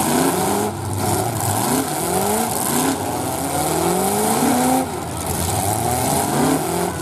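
Several demolition-derby car engines revving hard again and again, their pitch climbing and falling and overlapping.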